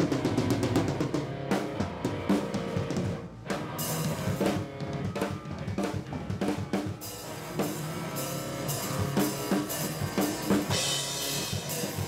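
Rock band playing, with the drum kit's kick and snare to the fore and guitar underneath; cymbals crash near the end.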